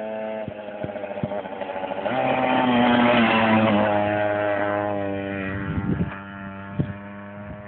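JAWA Mustang's small two-stroke moped engine running as the bike rides up and past. It grows louder about two seconds in and is loudest around three seconds, its pitch drops a little as it goes by, and then it fades away.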